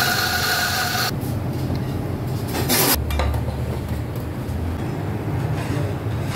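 Espresso grinder running, dosing coffee into a portafilter, cutting off about a second in. About three seconds in comes a short knock, then the espresso machine's pump hums low and steady as the shot pours.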